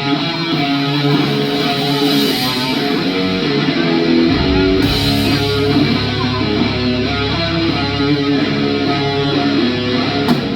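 Live rock band playing the intro of a song, electric guitar strumming chords that ring out. A low sustained note comes in about four seconds in, and a few sharp hits land near the end.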